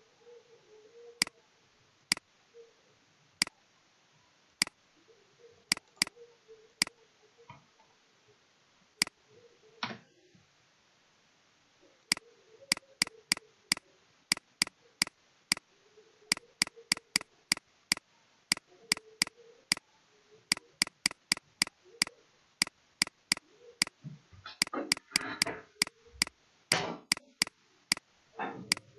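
Computer mouse and keyboard clicking: sharp single clicks, sparse at first, then quickening to two or three a second as addresses are copied and pasted. Near the end there is a brief louder, muffled sound.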